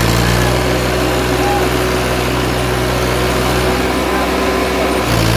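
Farmtrac 60 tractor's diesel engine running steadily under heavy load while dragging two harrows. Its note changes about five seconds in.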